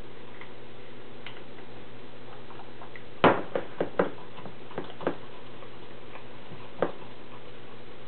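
A fork clinking against the glass container while stirring thick brownie batter: a quick cluster of sharp knocks about three seconds in, then a single one near the end, over a steady low hum.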